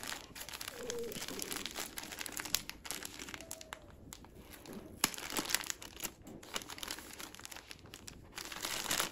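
Clear plastic packing bag crinkling as it is handled and pulled open by hand, with irregular crackles and a few sharper clicks.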